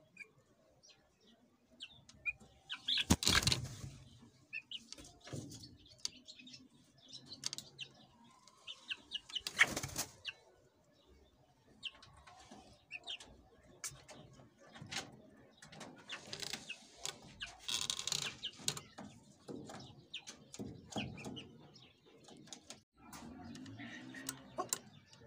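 Young Aseel chicks moving about in wood-shaving bedding, scratching and pecking with small rustles and clicks. There are brief wing-flapping bursts about three and ten seconds in, and a few short faint peeps.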